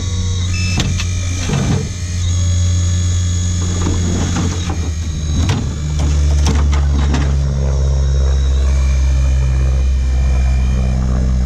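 Radio-controlled excavator running: a steady motor drone with a thin high whine, shifting in pitch about two seconds in and again about six seconds in. Scattered clicks and crackles come in between.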